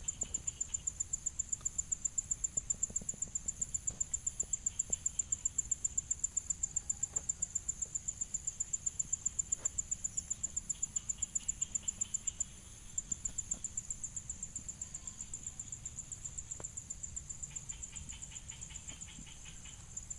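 A high-pitched insect call pulsing steadily at about five pulses a second, breaking off briefly a little past halfway through. Fainter, lower trills come and go behind it.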